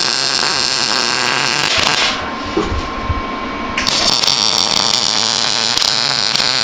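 Handheld power tool running loudly on metal bracket work. About two seconds in it eases to a lower steady whine, then comes back to full noise about four seconds in.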